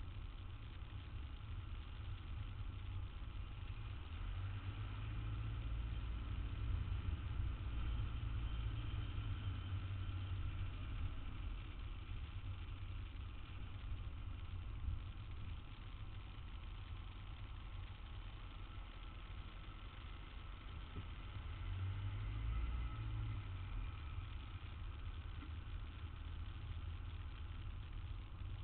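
City street traffic: a steady low rumble of vehicle engines, swelling louder for a few seconds near the start and again about two-thirds of the way through as vehicles pass or idle close by.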